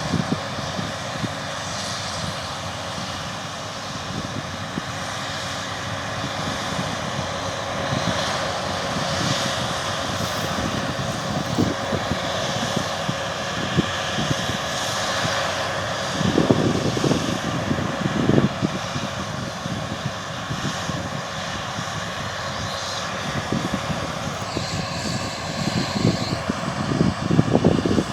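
Massey Ferguson Cerea combine harvester running steadily as it cuts, a continuous engine and threshing drone, with a few louder low bumps about halfway through.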